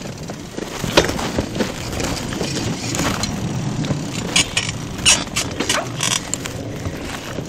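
Bicycle ridden over rough, bumpy ground: a continuous rolling rumble with rattling and sharp clacks from the bike as it jolts, one loud clack about a second in and several more in the second half.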